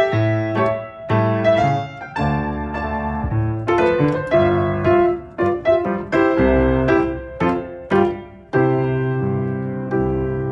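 Solo piano playing classroom ballet accompaniment: a phrase of struck chords and melody notes, ending on a long held chord over the last two seconds.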